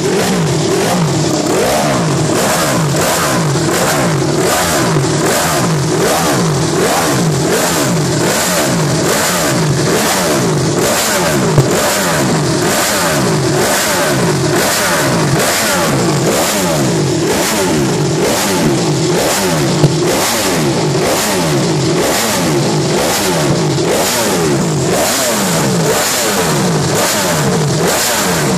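Ducati Desmosedici MotoGP racing bike's V4 engine, warmed up on the stand and revved in a steady run of quick throttle blips, the pitch rising and falling about once a second.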